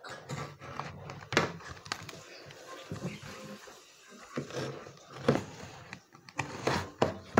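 Utility knife cutting through corrugated cardboard: an irregular scratchy scraping with several sharp knocks as the blade and hands work the board.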